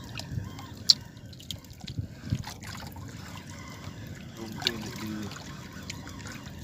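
Sea water lapping and trickling against a small boat's hull, with a few sharp clicks, the loudest about a second in.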